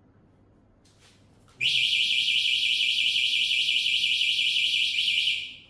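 An electronic alarm sounds a loud, high-pitched warbling tone. It starts abruptly about a second and a half in, holds steady for about four seconds, then dies away.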